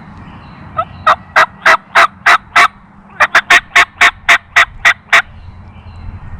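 Turkey call worked by the hunter, giving a run of loud hen yelps. Six evenly spaced yelps come first, then after a short break a quicker run of about nine.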